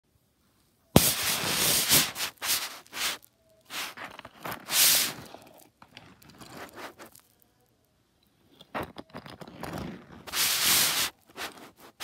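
Scraping and rubbing against a carpet play mat in irregular bursts of a second or so, beginning with a sharp click about a second in, with a pause about a third of the way through and another just past the middle.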